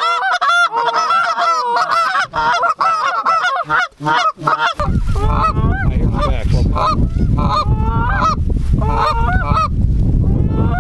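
Canada goose call blown in rapid honks and clucks to work a flock locking into the decoys. About five seconds in, a steady low wind rumble on the microphone joins, and the honking carries on in shorter runs over it.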